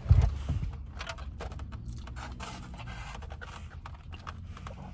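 Close-miked chewing of crunchy fried food, with a soft thump at the start and then a run of small crackling crunches and mouth clicks.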